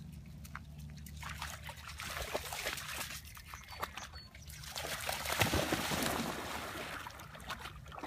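Water splashing and sloshing as two dogs, one of them a Belgian Malinois puppy, wade and paddle out through shallow lake water. The splashing builds after about a second and is heaviest around five to six seconds in.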